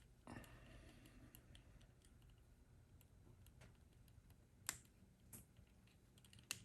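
Quiet handling of motorcycle wiring, with a few small, sharp clicks as bullet connectors on the ground wires are pushed into a double female connector; the loudest click comes near the end.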